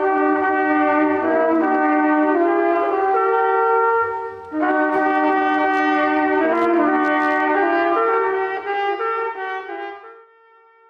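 Several brass instruments playing together in two phrases of held chords, with a short break between them; the last note is held and fades out near the end.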